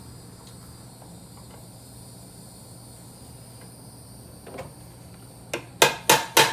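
A hammer striking a pin punch to drive a steel roll pin into a shifter shaft held in a vise: a run of sharp metal taps, about three a second, starts near the end. Before that there is only a steady faint hum.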